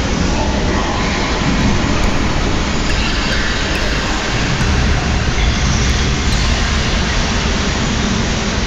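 Dense, steady wash of electronic noise from oscillators in a live noise performance, heaviest in the low end, with no clear pitch or rhythm.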